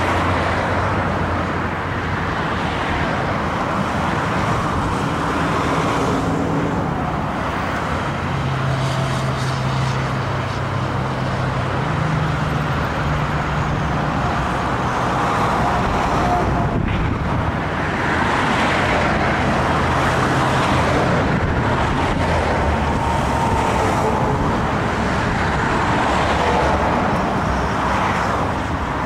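Motorway traffic passing below: a steady rush of tyre and engine noise from trucks and cars. A truck's low engine hum stands out through the middle.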